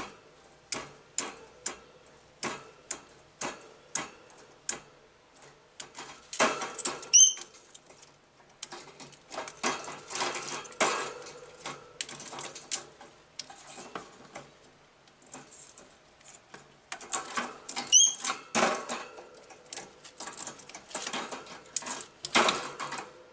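Green-cheeked conure shoving and pecking a pinecone across the wire floor grate of its cage: an irregular series of clicks, knocks and rattles. Two brief high squeaks cut in, about a third of the way through and again past the middle.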